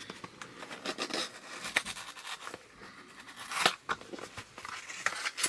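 Packaging being handled and opened by hand: irregular rustling, scraping and tearing, with sharp clicks, two of them louder, at a couple of seconds apart.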